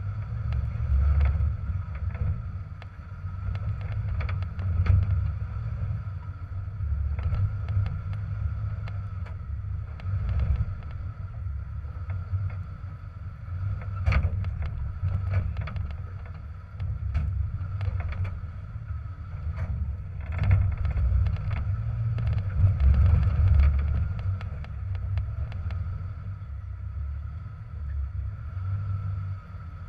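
Jeep TJ engine running at low speed as it crawls over a rocky trail, its rumble swelling and easing with the throttle, with scattered sharp knocks and clunks as the tyres and underside meet rocks.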